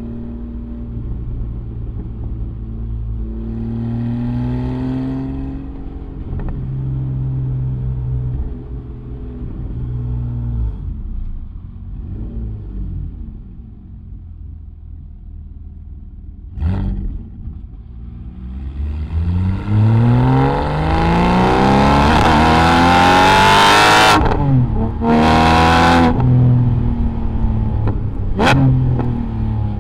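Porsche 718 GT4's 4.0-litre flat-six running through a Kline Innovation Inconel full exhaust: cruising at low revs, then, after a single sharp crack past the halfway point, a hard acceleration with the engine note rising steeply and getting much louder to high revs. Two quick breaks in the note mark upshifts, and a last sharp crack comes near the end as the revs drop.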